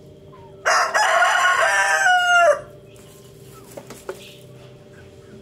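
Rooster crowing once, a single crow of about two seconds that drops in pitch at the end.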